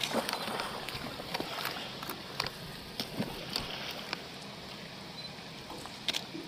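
Steady outdoor rush of water and wind, with irregular small clicks and smacks scattered through it.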